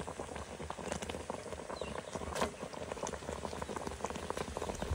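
A pot of tomato, chile and achiote broth boiling hard: many small bubbles popping over a low steady rumble. One sharp click about halfway through.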